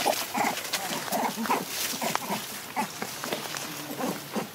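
Baby macaque crying out in short, repeated squealing calls, a few each second, each rising and falling in pitch: distress cries while an older macaque pins it down.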